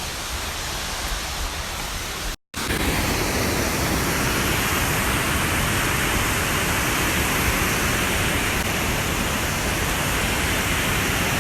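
Steady rushing of a waterfall. The sound drops out completely for a moment about two and a half seconds in, then comes back louder.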